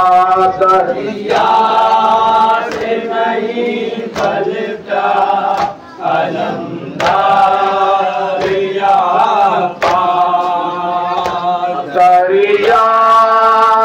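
Shia nauha (Muharram lament) chanted by a group of men in chorus, long sung phrases with brief breaks between them. Sharp slaps of hands beating on chests (matam) keep time under the singing.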